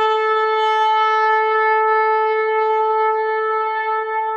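A long horn blast held on one steady note, sounded as an angel's trumpet call, beginning to fade near the end.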